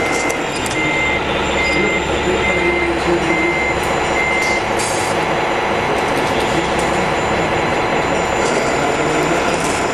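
Reversing beeper of a radio-controlled truck's sound unit: a steady high beep repeating about once a second, six times, then stopping about four and a half seconds in, over a steady background rumble.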